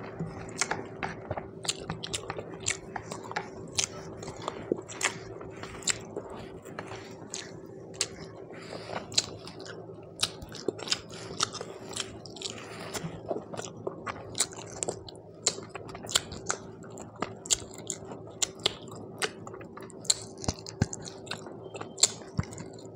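Close-miked chewing of a mouthful of rice and curry, with many short wet mouth clicks and smacks coming irregularly two or three times a second. A steady low hum runs underneath.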